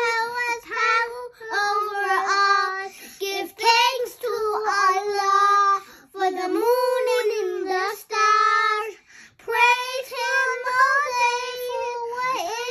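Young girls singing an Islamic children's song praising Allah, unaccompanied, in high voices, in phrases broken by brief pauses.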